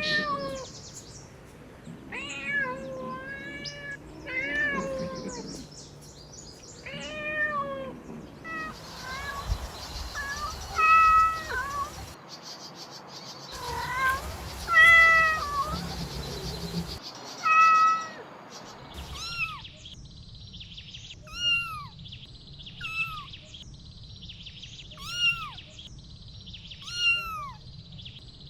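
Kittens meowing again and again: a long run of short, high mews, several overlapping in the first half, then single, falling mews about every second and a half.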